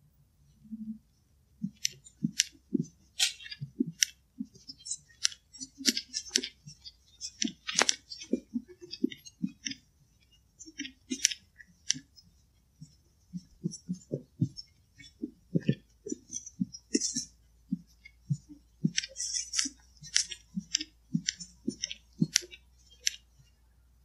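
Footsteps crunching through dry leaves and twigs on a forest floor: an irregular run of sharp crackles with dull thuds under them, about two or three a second, starting about two seconds in.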